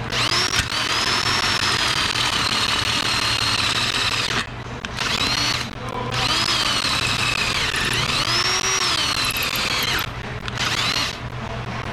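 Power drill boring into a steel lug nut with a twist bit, the bit squealing on the metal in a high whine that wavers in pitch; it runs in spells, stopping briefly about four seconds in and again near ten seconds. The nut is being drilled out because it is over-torqued and possibly cross-threaded.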